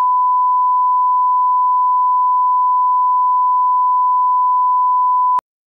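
Steady pure line-up test tone of a bars-and-tone leader, cutting off suddenly about five seconds in.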